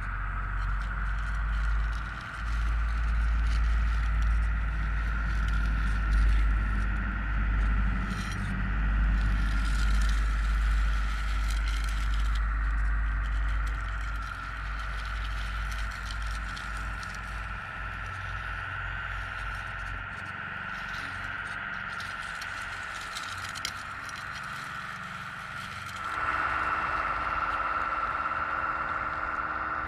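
Radio-controlled CAT compact track loader running: a steady high motor whine, with its rubber tracks and bucket scraping and crunching over loose gravel ballast. A low rumble underlies the first two-thirds and fades out, and the whine grows louder and fuller near the end.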